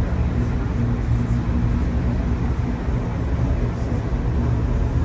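A DB Class 425 electric multiple unit running, heard from inside: a steady rumble with a constant low hum.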